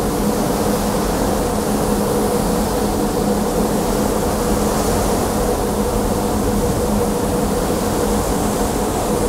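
Steady rushing noise on the deck of a large container ship under way, with a constant low hum from the ship's machinery running through it.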